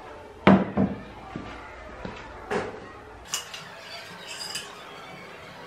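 A ceramic bowl set down on a wooden table with two knocks about half a second in, then lighter clinks of a metal spoon against a metal pan as food is spooned out.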